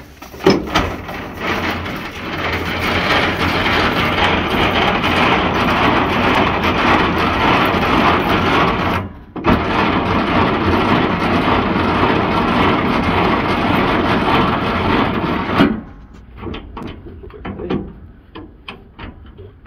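Semitrailer landing legs being wound down with the hand crank: a steady mechanical noise from the crank gearing for several seconds, a short pause, then more winding. Near the end the winding stops and there are a few light knocks and clicks of the crank handle.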